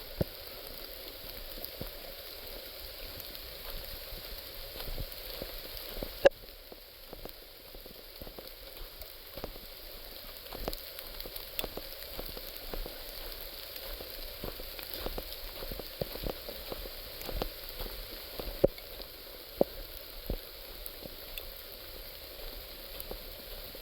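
Light rain pattering on leaves and the forest floor: a steady hiss with many irregular drops ticking, and one sharp knock about six seconds in.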